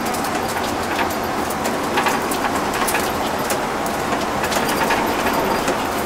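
Cabin noise inside a moving vehicle: steady road and engine noise with frequent small clicks and rattles.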